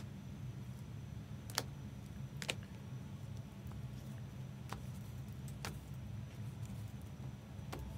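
Steady low hum with five sharp, isolated clicks spread about a second or two apart, the loudest about one and a half seconds in.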